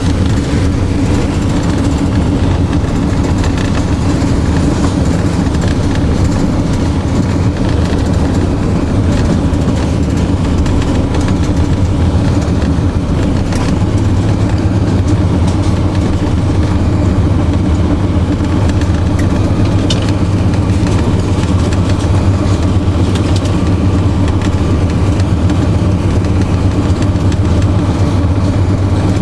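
TU7 narrow-gauge diesel locomotive heard from inside its cab: its V12 diesel engine running steadily, mixed with wheel and rail noise, the engine note getting a little stronger about halfway through.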